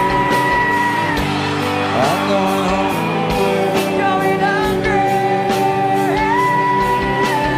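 A song playing: a steady drum beat about twice a second under guitar and long held melody notes that slide between pitches.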